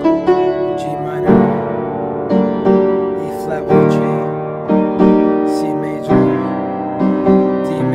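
Piano playing a slow sequence of chords, a new chord struck roughly once a second and left ringing as it fades.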